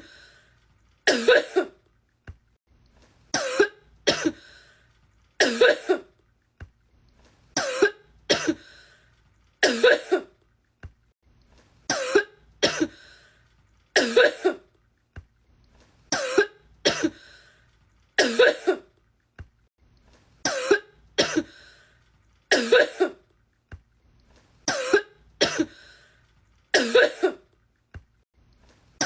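A woman coughing in a coughing fit, looped: a pair of coughs in quick succession, repeated evenly about every two seconds.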